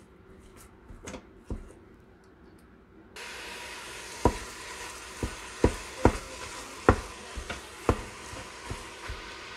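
Ground venison and Italian sausage browning in a Fissler cooker's stainless-steel pot on the sauté setting, knocked and broken up with a wooden spoon that taps against the pot over and over. For the first three seconds there are only a few spoon knocks. Then a steady sizzle starts abruptly, with the spoon knocking irregularly through it.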